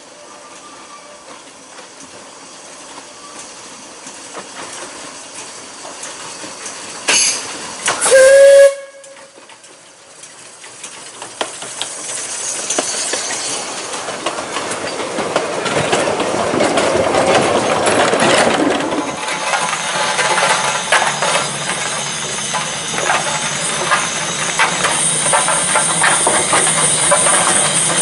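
Narrow-gauge steam locomotive whistling twice, a short toot and then a longer blast about eight seconds in. The locomotive and its passenger coaches then approach and pass with rising chuffing, hiss and rail clatter. Near the end this gives way to a steadier steam hiss over a low hum.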